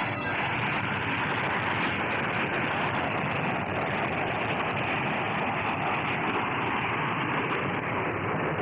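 Jet engine noise of a B-58 Hustler's four J79 turbojets at full power during the takeoff run and lift-off: a steady, even rushing sound.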